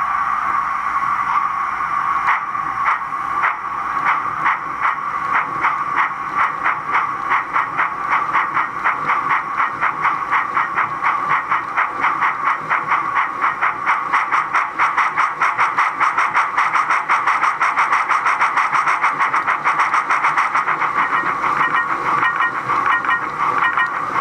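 Sound decoder of a BR Standard 9F model steam locomotive playing exhaust chuffs over a steady hiss, the beats slow at first and quickening steadily as the loco gathers speed. The exhaust is set to four even chuffs per wheel revolution with the articulated exhaust switched off.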